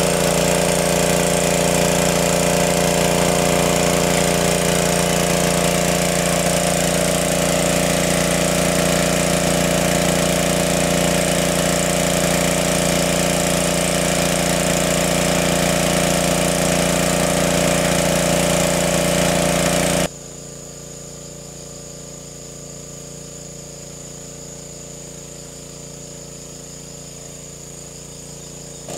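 Small engine-driven water pump running steadily. About two-thirds of the way through, it drops abruptly to a much quieter steady level.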